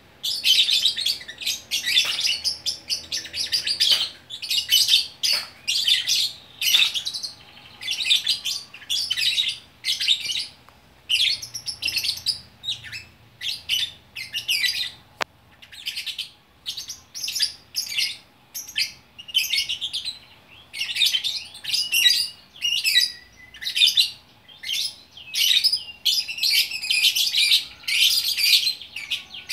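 Lovebirds chattering in rapid, high-pitched bursts, one after another with barely a pause.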